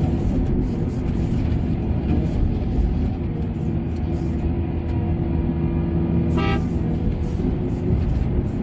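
Heavy mining machine's diesel engine running steadily, with a short horn toot about six and a half seconds in.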